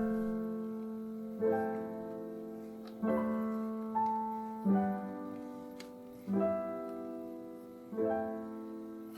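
Background piano music: slow chords, each struck and left to ring out, about every second and a half.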